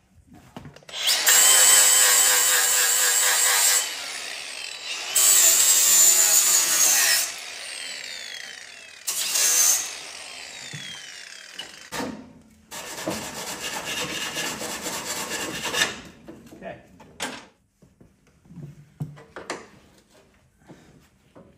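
Cordless angle grinder grinding on the steel mower deck in four bursts of a few seconds each, winding down between them, cutting out cracked metal and paint to prepare it for welding. Near the end come a few light knocks.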